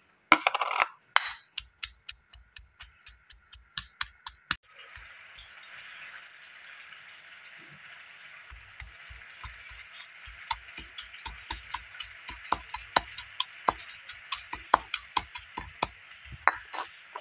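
Stone pestle pounding garlic, shallot, chillies, belacan and dried anchovies in a stone mortar (batu lesung) into paste: quick, even knocks, about three or four a second, in two runs with a short pause between, and a steady hiss behind them from a few seconds in.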